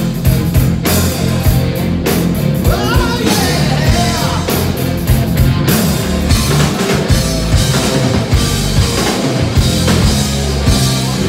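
Live hard rock band playing loud: electric guitar, bass guitar and drum kit in full swing, heard from the crowd.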